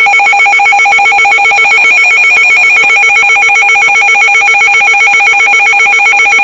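A weather alert radio's built-in alarm going off, a loud, rapid electronic trill like a telephone bell ringing. It signals that a severe thunderstorm warning has come in over NOAA Weather Radio.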